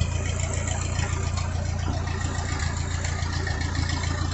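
Ford 8N tractor's four-cylinder engine running steadily at a low, even speed.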